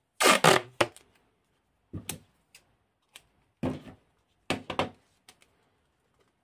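Black electrical tape being pulled off its roll in four short bursts.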